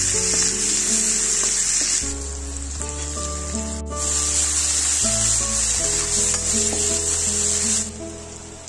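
Sliced onions sizzling in hot oil in a metal wok as a metal spatula stirs them. The sizzle eases for a couple of seconds midway, comes back, and drops away near the end.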